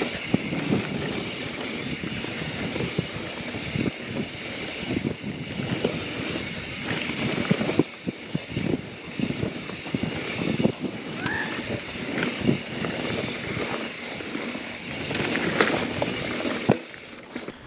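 YT Jeffsy mountain bike descending a flowy dirt trail over pump-track rollers: steady rush of tyres on dirt and air past the microphone, with frequent knocks and rattles from the bike. The noise drops off sharply near the end.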